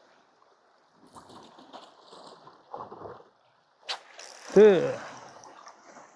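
Faint scattered rattling noise, then a sharp click about four seconds in. Right after the click comes the loudest sound, a man's short vocal exclamation whose pitch rises and then falls.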